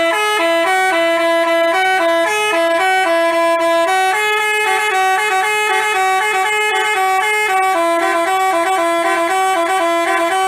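Basuri telolet horn, an Indonesian bus's multi-tone musical horn, playing a fast tune of short stepped notes with two tones sounding together.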